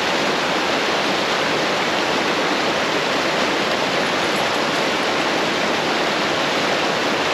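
A brook swollen with snowmelt and rain, rushing in a steady, loud wash of water.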